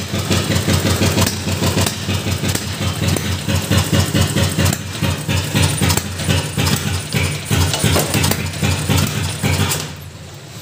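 Car engine with twin carburettors running just after being started, with a fast, uneven pulsing beat. It cuts out abruptly near the end.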